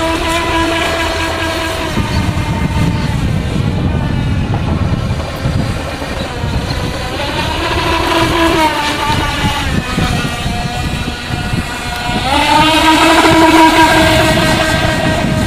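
Radio-controlled model speedboat's motor running at high speed, its whine rising and falling in pitch in three surges as the boat speeds past, loudest near the end.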